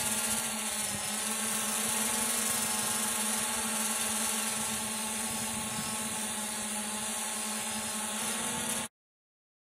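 Yuneec Typhoon H Plus hexacopter's six electric motors and propellers hovering overhead with a steady whine and small shifts in pitch, carrying a water-sampling bailer on a line. The sound cuts off suddenly near the end.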